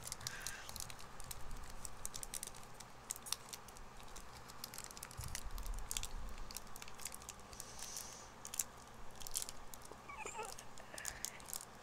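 Foil wrapper of a Pokémon trading-card booster pack crinkling as it is peeled open by hand: a string of small, faint, irregular crackles.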